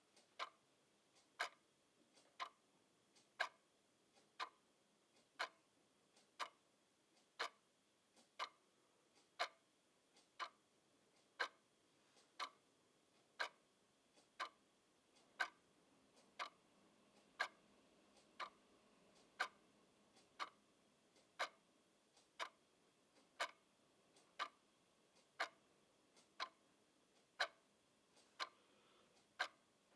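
A clock ticking steadily, about one sharp tick a second, over near-silent room tone.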